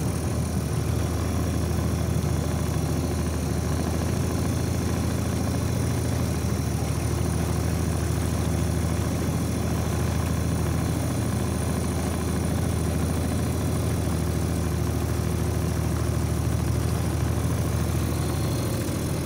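A motorboat's engine running steadily, a constant low drone that holds at one pitch and level throughout.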